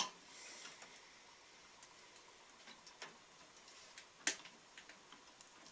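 A few faint, sharp clicks and taps of a small part being handled and fitted inside a microwave oven, the loudest about four seconds in.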